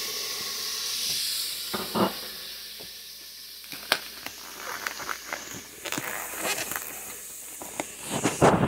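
A steady hiss from the pot on the stove fades over the first few seconds. It gives way to crinkling and crackling of plastic wrap and packaging as a tray of ground beef is handled, loudest near the end.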